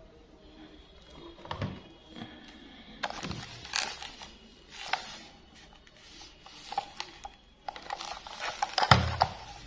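Hard plastic toy train being handled by gloved hands: irregular knocks, clicks and rubbing of the plastic body and wheels, with the loudest knocks near the end.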